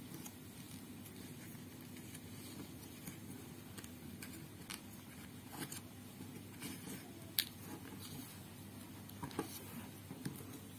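Glossy origami paper being folded and creased by hand: soft rustling and crinkling with scattered crisp ticks as the folds are pressed down, the sharpest about seven seconds in.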